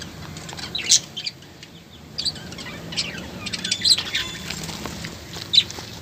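Budgerigars chirping and squawking in an aviary: a handful of short, sharp, high-pitched calls spread through the few seconds.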